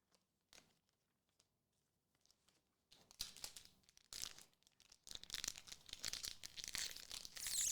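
A foil trading-card booster pack being torn open and crinkled, starting about three seconds in and loudest near the end, after a few faint clicks of cards being handled.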